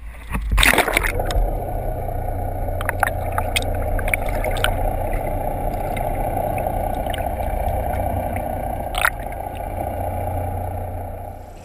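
Fishing boat's engines running steadily, a low drone that comes up about a second in and drops away just before the end, with a few sharp clicks and knocks on deck.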